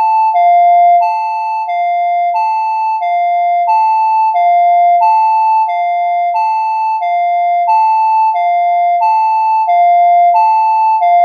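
Electronic two-tone emergency alert alarm, alternating evenly between a lower and a higher pitch about every two-thirds of a second.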